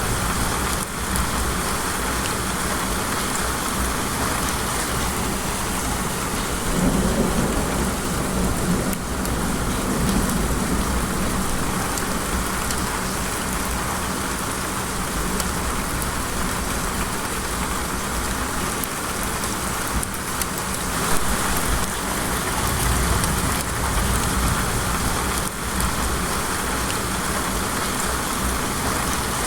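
Rain falling steadily, an even hiss, with a low rumble of thunder swelling about seven seconds in.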